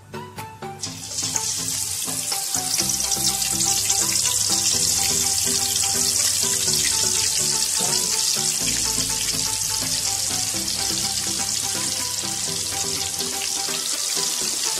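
Masala-marinated chicken pieces going into hot oil and deep-frying in a kadai: a loud, steady sizzle that starts abruptly about a second in.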